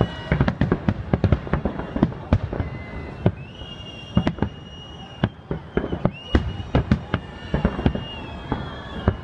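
Fireworks display: a rapid, uneven string of aerial shell bangs and crackles, with whistling shells sounding long steady high whistles partway through.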